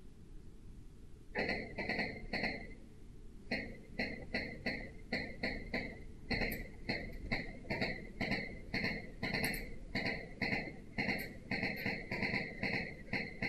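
Footsteps on metal stairs, about two steps a second, each step giving a short, high metallic ring. They start about a second in and pause briefly near three seconds.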